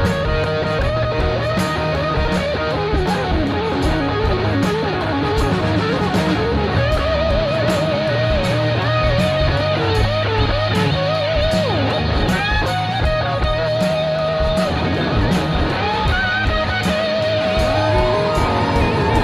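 Background rock music: an electric guitar playing a lead line with bent and wavering notes over a steady drum beat.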